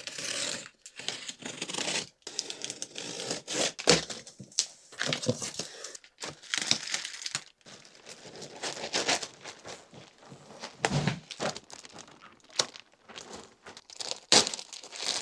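Clear plastic packaging bag crinkling and rustling in irregular crackles as it is pulled back off a foam-packed 3D printer, with an occasional thump.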